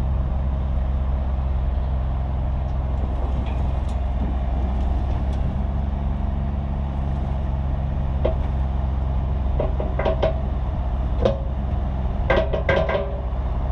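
Front-end loader's diesel engine running steadily as its bucket is raised and tipped to dump dirt into a pickup's bed. A few sharp clanks and knocks come in the last several seconds as the load starts to spill.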